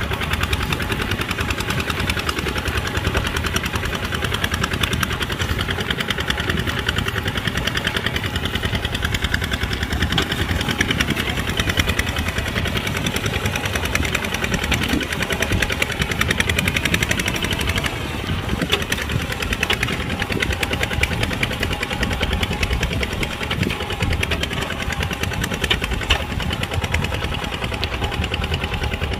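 Kubota RT140 single-cylinder diesel engine running steadily with a rapid knocking beat, working the tractor through a muddy field.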